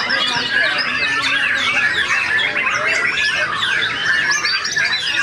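Many caged white-rumped shamas (murai batu) singing at once in a song contest: a dense, unbroken jumble of overlapping whistles, chirps and rapid trills.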